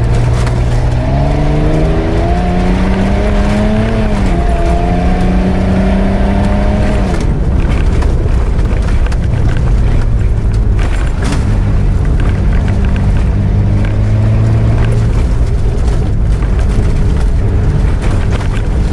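An off-road 4x4's engine, heard from inside the cabin, pulling hard up a muddy dirt track. Its pitch climbs over the first few seconds, drops at gear changes, then holds steady, over a constant rumble of tyres on rough ground.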